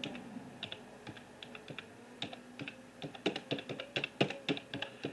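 A rapid, irregular run of light clicks and taps, thickening and getting louder in the second half.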